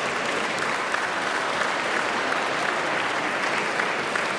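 A crowd of people applauding, with steady clapping.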